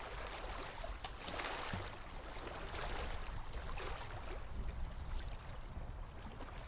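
Small waves lapping against a wooden pier, with a steady low rumble underneath.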